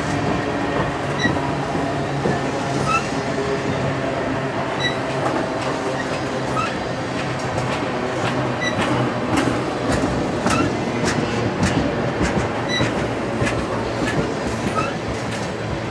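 Freight train of steel tank cars rolling past with a steady rumble, its wheels clicking over the rail joints, the clicks coming thicker in the second half.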